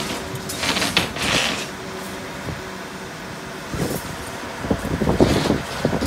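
Construction-site noise: a steady mechanical background, with brief louder bursts of hiss and clatter about a second in and again near the end.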